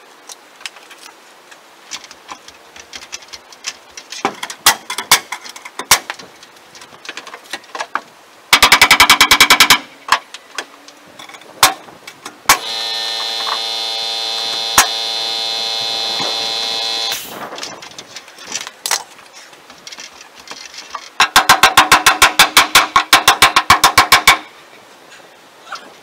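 Handheld power tool working on the wooden framing: two loud runs of rapid rattling hammering, one about a second long and one about three seconds long near the end, with a steady motor whine lasting about four and a half seconds between them, and scattered knocks throughout.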